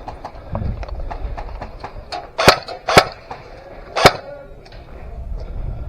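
Airsoft gunfire: three loud, sharp shots in the middle, the second about half a second after the first and the third about a second later, over scattered fainter shots.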